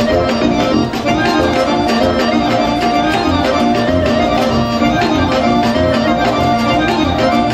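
Folk orchestra led by accordion, playing Western Macedonian dance music live with a steady beat.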